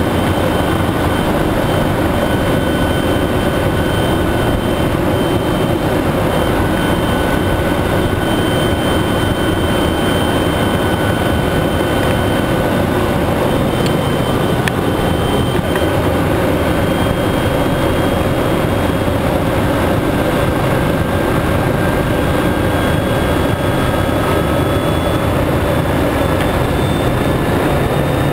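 Helicopter engine and main rotor running steadily, heard loud from aboard the helicopter, with a few faint steady high whines over the noise.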